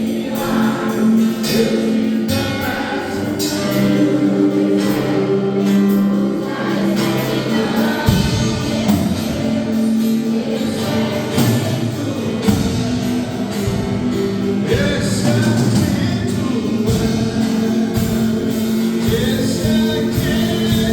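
Gospel music with singing voices and instruments.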